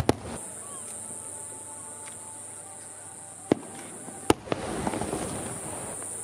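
Aerial firework shells bursting: a sharp bang just at the start, then two more about three and a half and four seconds in, the last followed by a second or so of crackling as its stars spread.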